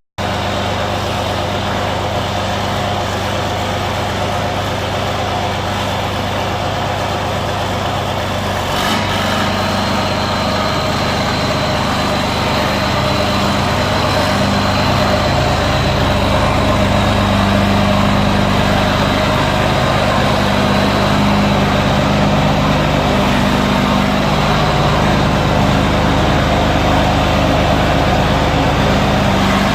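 John Deere 4440 tractor's six-cylinder diesel engine running steadily. About nine seconds in there is a click, after which the engine runs a little louder with a faint high whine.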